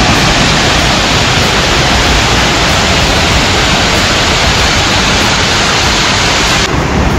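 Waterfall: a loud, steady rush of falling water close to the microphone, its hiss softening slightly near the end.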